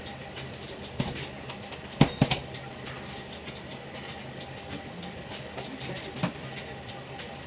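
Steady machine hum of kitchen equipment, broken by a few sharp knocks and clicks from hands working inside a metal electrical control box. The loudest knock comes about two seconds in, with a quick second one right after it and a single one a little after six seconds.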